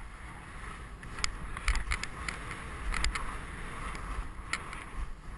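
Skis sliding over tracked snow with a steady hiss, broken by a scattering of sharp clicks and scrapes, under a low rumble of wind on the microphone.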